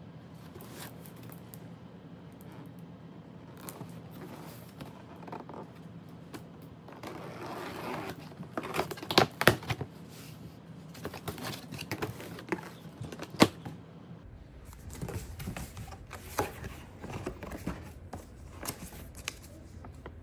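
Cardboard box being opened by hand: scraping and sliding of the flaps, sharp knocks and clicks about nine and thirteen seconds in, then paper and cardboard rustling as the contents are taken out.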